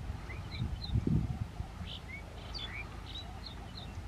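Small birds chirping in quick, repeated short notes, over a low irregular rumble that swells about a second in.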